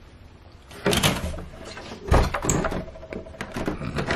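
Interior door being opened by its knob: a sharp click about a second in and a louder knock about two seconds in, then handling clatter.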